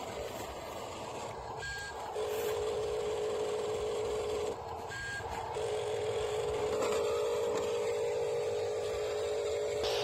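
Small electric drive motor and gearbox of a radio-controlled dump truck whining steadily as it drives, in two stretches with a short break about halfway through.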